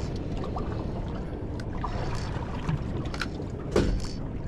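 Steady wind and water noise on a small boat at sea, with a few short sharp clicks and knocks, the loudest near the end.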